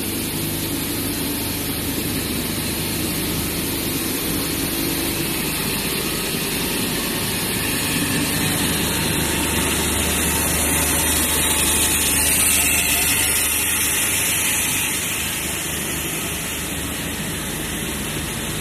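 Network-cable production line machinery running steadily: a low hum under a constant hiss. The hum grows louder for several seconds in the middle, then settles back.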